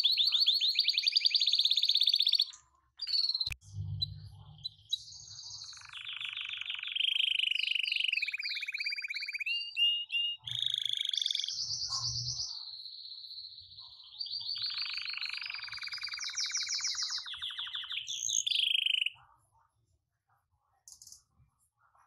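Domestic canaries singing: long runs of fast trills and rolls, each run held for a second or two before switching to another pitch. The song breaks off briefly with a click a few seconds in and stops about three-quarters of the way through.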